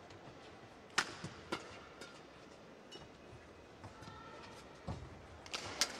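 Badminton rally: sharp cracks of rackets striking the shuttlecock, the loudest about a second in with two quicker ones after it, and another cluster near the end, over a low hiss from the arena.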